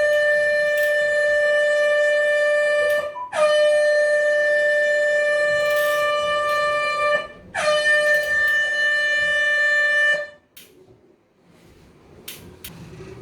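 Handheld air horn blown in three long, steady blasts of about three seconds each, with short gaps between them. It stops near the end, leaving a few faint clicks.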